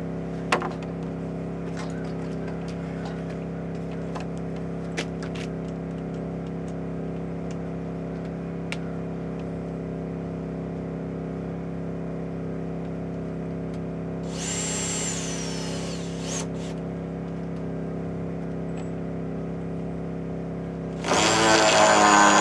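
A steady engine hum runs throughout, with a few sharp knocks. A power screw gun runs briefly about two-thirds of the way in, then runs again, louder with a high whine, near the end as a screw is driven into the rafter timber.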